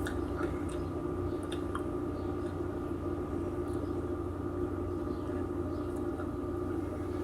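Steady background hum from a running appliance or machine, with a few faint clicks.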